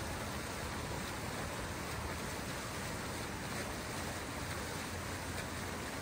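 Water fountain splashing: a steady, even rush of falling water with a low rumble underneath.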